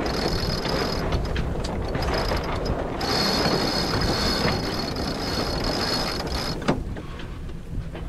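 Wind buffeting the microphone aboard a sailboat under sail, a steady rushing noise with a high steady tone over it that stops near the end. There is one sharp knock about two-thirds of the way through, after which the noise eases.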